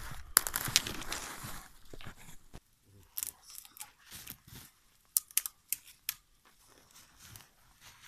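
Crunching footsteps in snow with dry twigs crackling, loud for about the first two seconds. After that it goes quiet, with a few sharp separate clicks and snaps in the middle.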